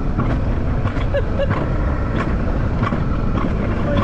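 Alpine coaster sled running down its steel track: a steady low rumble of the wheels rolling, with light clicks coming at fairly regular intervals, and wind on the microphone.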